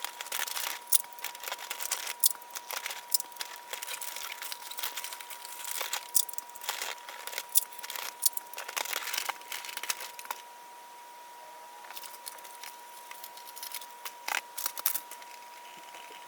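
Paper or plastic packaging crinkling and rustling as it is handled, in quick crackles. The crackling thins out to a few faint ones after about ten seconds.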